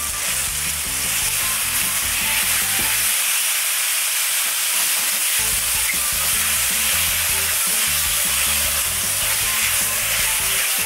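Spicy gochujang-marinated pork sizzling steadily as it fries in an oiled, preheated pan, stirred and turned with a silicone spatula.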